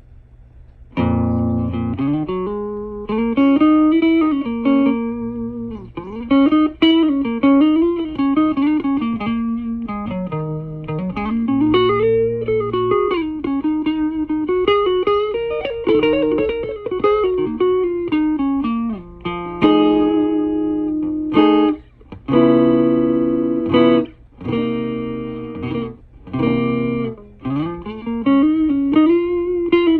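Electric guitar played through a rebuilt 1966 Fender Champ tube amplifier, sounding fairly clear: single-note lines with slides and bends begin about a second in, and strummed chords come in the later part. A steady low hum sits underneath.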